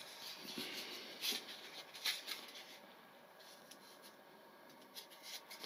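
Faint, scattered clicks and rustles of a small plastic missile pylon from a foam RC jet kit being handled and turned over in the hands, against quiet room tone.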